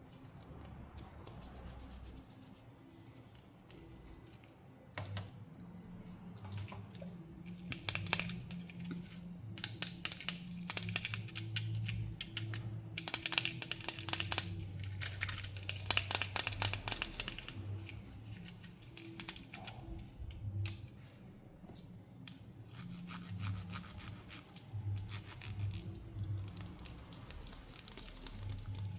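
Hands unpacking toys: plastic packaging and pieces rubbing, scraping and tearing, with many small clicks. The handling is busiest through the middle of the stretch and again near the end.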